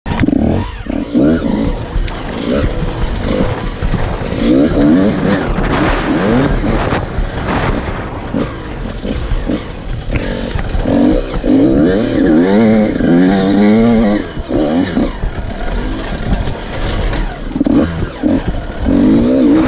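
Enduro dirt bike engine heard from the rider's helmet camera, revving up and falling back again and again as the throttle is worked over a rough dirt trail, over a steady low rumble.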